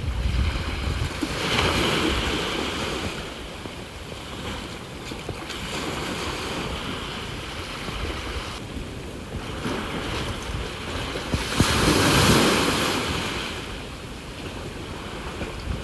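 Sea waves washing onto the shore in slow swells, with two bigger breakers, one about two seconds in and a louder one about three-quarters of the way through. Wind buffets the microphone at the start.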